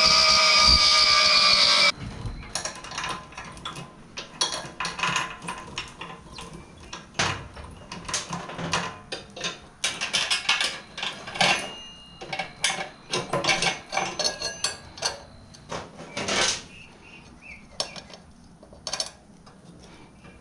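A steady high whine, like a small motorised tool, stops abruptly about two seconds in. Then come irregular metallic clicks, clinks and taps of hand tools and roller chain links being handled while a link is taken out of the chain.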